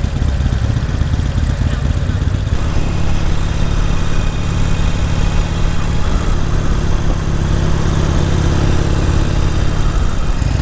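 Motorcycle engine running at a fairly steady note while riding, with a steady rush of noise over it.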